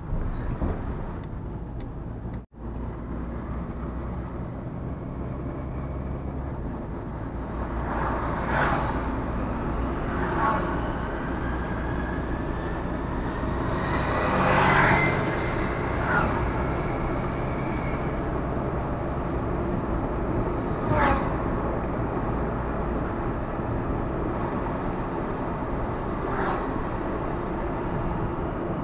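Road noise of a vehicle driving: a steady low rumble with several brief louder swells. The sound cuts out for an instant about two and a half seconds in.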